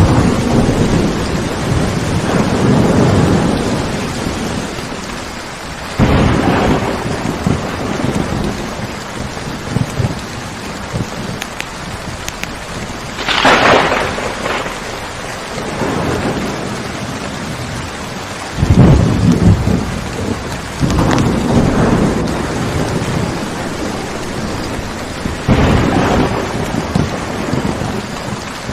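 A thunderstorm: steady rain with thunder rumbling about six times, each roll swelling and fading over a few seconds, and a sharper, brighter clap about halfway through.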